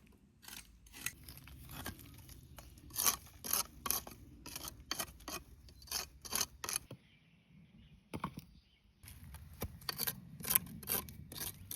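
Old bricks being cleaned and handled: an irregular series of sharp clicks, knocks and scrapes of brick against brick and tool, with a pause of about two seconds past the middle.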